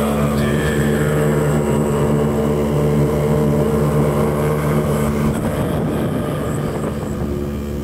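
Droning music: several low held tones sounding together. About five seconds in, the held tones break into a rougher, noisier texture.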